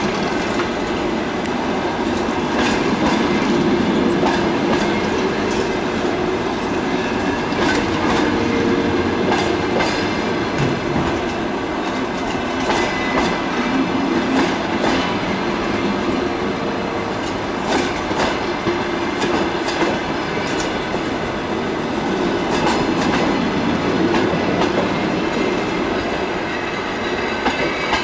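Passenger coaches of a departing train rolling past, the wheels clicking irregularly over rail joints under a steady rolling rumble.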